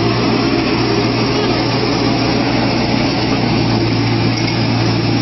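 A large engine running steadily at constant speed, with a deep, even hum and no change in pitch.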